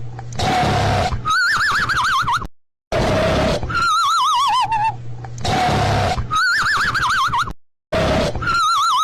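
Cartoon snoring sound effect on a loop: a raspy snore, then a warbling whistle, over and over. The whistles alternate between one that falls in pitch and a higher one, and a short silence comes after every second whistle, so the cycle repeats about every five seconds.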